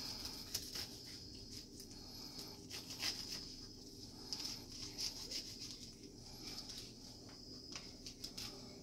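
Chef's knife cutting through a pineapple on a plastic cutting board: a run of short, irregular slicing sounds and taps of the blade against the board.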